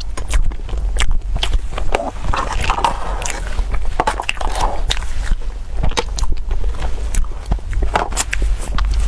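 Someone biting and chewing crunchy food close to the microphone: an irregular run of sharp cracks and crunches over a steady low rumble.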